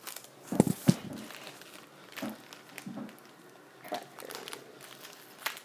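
Two sharp knocks a little over half a second in, then a crackers wrapper crinkling and crackling in short bursts as it is handled.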